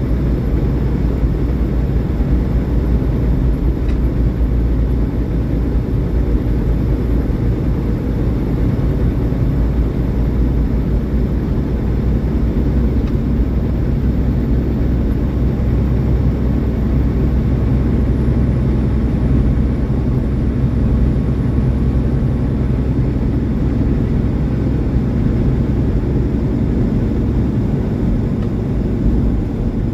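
Semi truck running steadily at road speed: a continuous low rumble of diesel engine and road noise.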